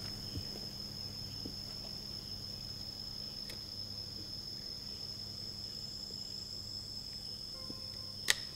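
Crickets chirring in a steady, unbroken high-pitched trill over a low hum. One sharp click sounds near the end, and a fainter one at the very start.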